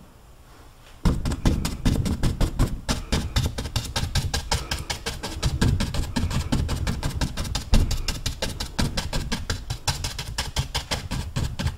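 Stiff paintbrush scrubbing oil paint onto a stretched canvas: a fast, even run of scratchy strokes, several a second, starting about a second in, with the taut canvas giving each stroke a low knock.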